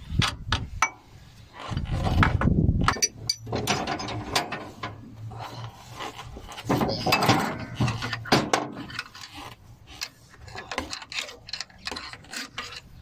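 Ratchet wrench clicking in irregular runs as the alternator's mounting bolts on an excavator's diesel engine are worked loose to take the alternator off.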